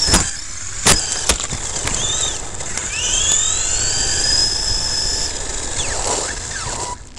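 Onboard sound of an Ansmann SC4 radio-controlled short course truck driving fast over gravel: the electric motor's whine rises and falls with the throttle over steady tyre noise. Three sharp knocks come in the first second and a half, and the motor winds down near the end.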